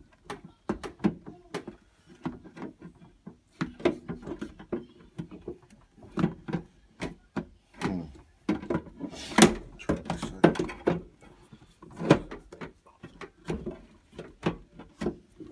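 A MacBook laptop knocking and scraping against the metal walls of a small in-room safe as hands push and work it to free it, an irregular run of clunks and taps, the loudest about nine seconds in.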